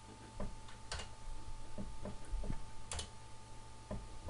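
Computer mouse clicking a few times at irregular moments, with two sharper clicks about a second and three seconds in, over a steady electrical hum with a faint whine.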